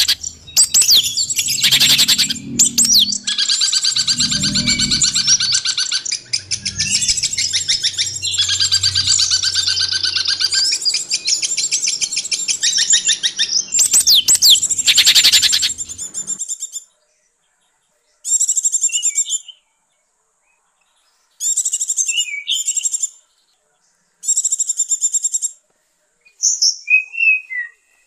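Songbird tutor ('masteran') recording: dense, overlapping high chirps and rapid trills. After about sixteen seconds it stops suddenly, and four short trilled phrases follow, each a second or so long, with silent gaps between.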